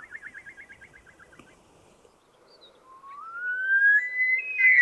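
Himalayan snowcock calling: a rapid run of short notes that fades out, then after a pause a long whistle rising in steps, loudest near the end.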